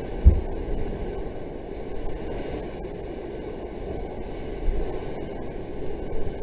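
Rough sea surf and wind on the microphone make a steady rushing roar beside the sea wall. A low thud about a third of a second in is the loudest sound, with a few weaker thumps later on.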